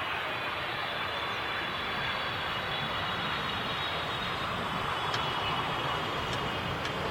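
Jet airliner on landing approach: a steady rushing engine noise with a faint high whine.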